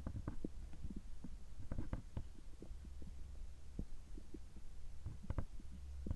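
Stomach gurgling just after a gastroscopy: scattered small pops and gurgles, bunched about two seconds in and again near the end, over a steady low hum.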